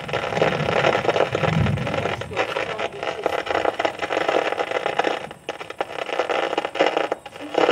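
Heavy rain in a thunderstorm: a loud, rushing noise that swells and eases, with a short low rumble about a second and a half in.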